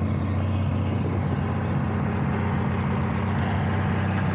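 Diesel engine of an opal-dirt agitator (a converted cement mixer) running steadily with an even low hum.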